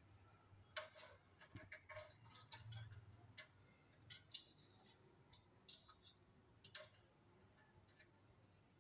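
Faint, irregular light clicks and taps of a cat's claws and paws on an aluminium stepladder and marble tile floor as it reaches and climbs.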